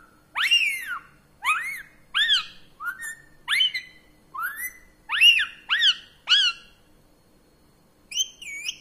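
Female Indian ringneck parrot giving a run of short, high whistled calls that each rise and fall in pitch, about nine in the first six seconds. Then a pause and one or two more near the end.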